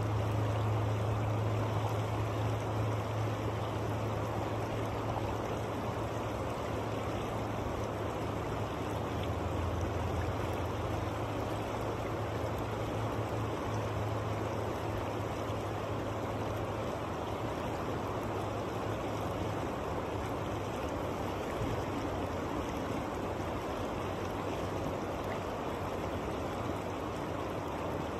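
River current rushing steadily over a shallow rocky riffle, an even wash of running water with a steady low rumble underneath.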